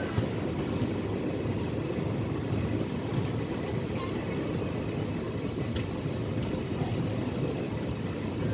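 Steady rumble of a moving passenger train, with a few faint clicks over the noise.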